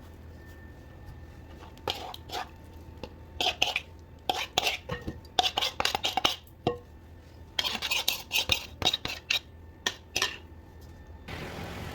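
Kitchen utensils clinking and clattering against cookware in quick bursts, as when stirring or scooping in a pan or bowl, over a steady low hum.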